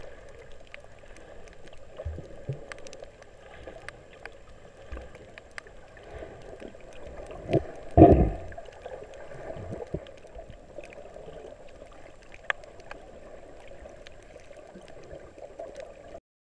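Underwater sound picked up by a camera submerged on a coral reef: a steady muffled water noise with scattered faint clicks, and one louder rush of noise lasting about a second near the middle.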